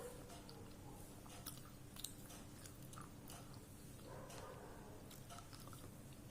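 Close-up chewing with scattered crunchy clicks, one sharper crack about two seconds in.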